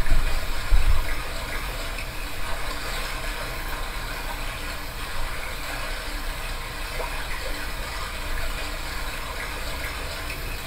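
HoMedics sound machine playing a babbling-brook recording: a steady rush of running water, with a few low thumps in the first second.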